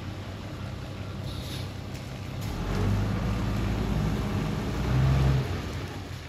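Bus engine pulling harder as it accelerates, growing louder from about halfway through and easing off near the end.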